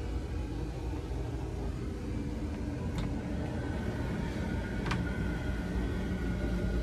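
Steady low mechanical hum, like a motor running, with two faint clicks about three and five seconds in.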